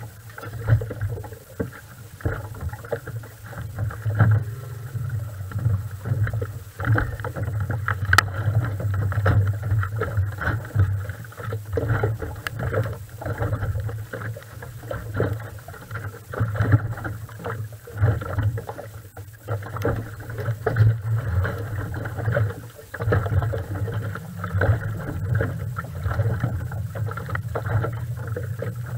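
Lake water slapping and sloshing irregularly against the hull of a moored raceboat, with a steady low rumble underneath.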